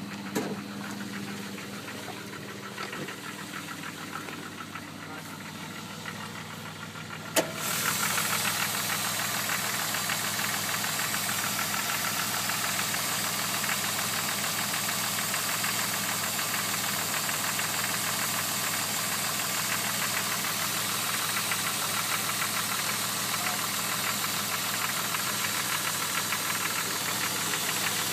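Jeep Grand Cherokee WJ's 4.0-litre inline-six running with a rapid, even knocking, which the owner is unsure is a fault. After a sharp click about a quarter of the way in, the sound becomes much louder and stays steady.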